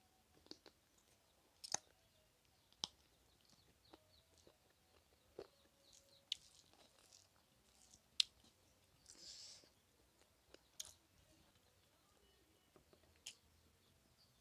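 Close-miked eating sounds: quiet chewing with about a dozen sharp, scattered mouth clicks and smacks, and one short breathy hiss about nine seconds in.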